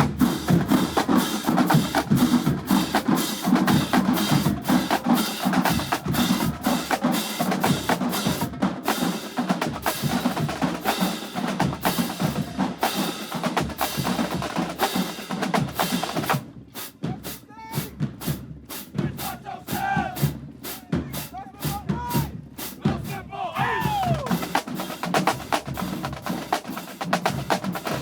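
Marching band drumline playing a cadence: snare and bass drums with fast rolls and sharp stick clicks. About two-thirds through it thins to spaced single strokes for several seconds, then the full drumming picks back up.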